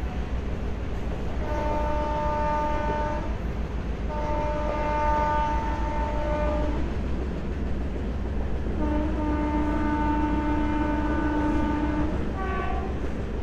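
Train horn sounding three long blasts and then a short one, the third blast lower in pitch than the first two, over the steady rumble and rattle of a passenger train running on the track. It is the warning sounded as the train approaches a level crossing.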